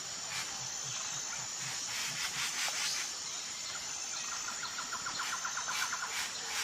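Wild birds and insects calling together: a steady high-pitched insect buzz throughout, repeated sharp chirps, and a rapid trill of about ten notes a second starting about four seconds in. A low, quick pulsing sounds underneath in the first two seconds.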